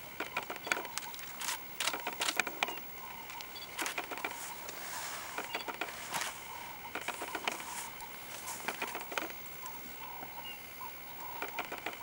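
Dry twigs and leaf litter crackling and snapping in irregular clusters as African elephants move and feed under a tree. Behind it runs a steady, slightly wavering high tone.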